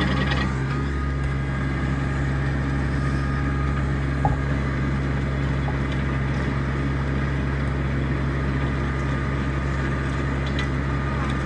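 RK25 compact diesel tractor engine running steadily under load, driving a 5-foot PTO rotary tiller through fresh ground.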